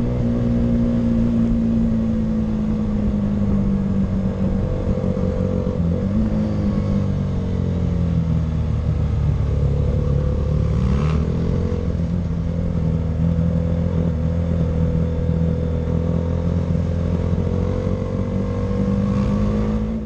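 Motorcycle engine heard from an onboard camera, running steadily on a circuit. Its pitch dips and climbs again about six seconds in and again about eleven seconds in as the revs change, with a short sharp click at the second change.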